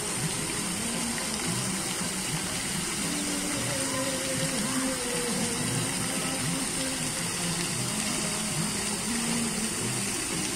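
Ornamental fountain's water jets spraying up and splashing down into the basin: a steady rushing hiss of falling water.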